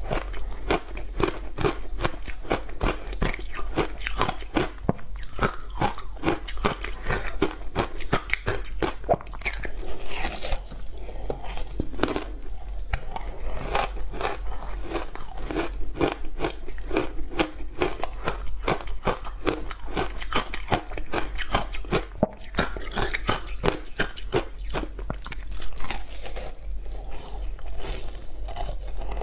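Frozen block ice made from matcha tea and sweet potato powder being bitten in big bites and chewed close to the microphone: a dense, unbroken run of sharp crunches.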